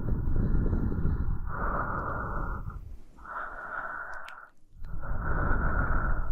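A woman's slow, close-miked breathing: four unhurried breaths in and out, each about a second long with short pauses between them.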